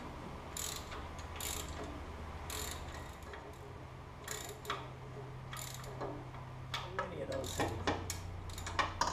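Ratchet wrench clicking in short bursts of strokes as the exhaust flange bolts are tightened down evenly on both sides.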